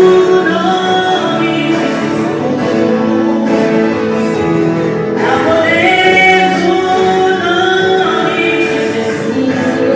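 Gospel worship music: a choir of men and women singing sustained, held notes over a steady instrumental backing.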